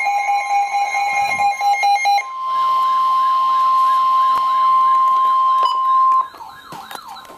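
Emergency Alert System alert tones. It opens with about two seconds of broken, stuttering tone bursts. Then a single steady high attention tone holds for about four seconds and cuts off abruptly, with a fainter warbling tone underneath that carries on quietly.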